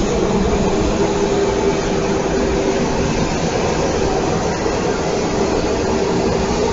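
Tram-track sweeper truck working the tram tracks: a steady, loud mechanical drone of its engine and sweeping gear, with one constant mid-pitched tone running through it.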